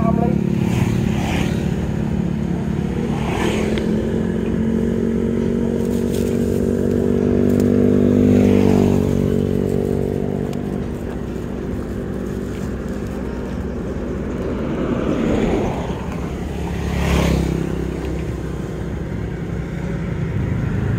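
Roadside traffic: motorbike and car engines going by on the road, their hum swelling and fading as each one passes.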